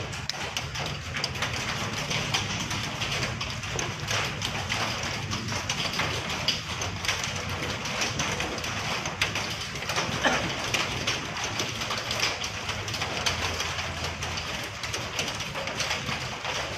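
Steady, dense patter of rain falling on surfaces, with a low steady hum underneath.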